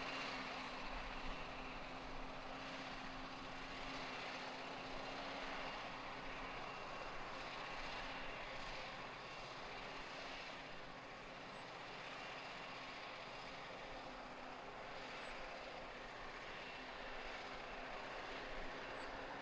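New Holland tractor's diesel engine running steadily as it pulls a silage trailer along a rough farm track.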